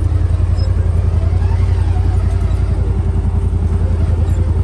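Off-road vehicle engine running steadily under way, a loud, even low rumble with rapid pulsing.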